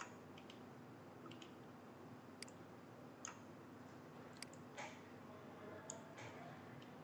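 Faint, scattered clicks of a computer mouse, about ten spread irregularly, over quiet room hiss.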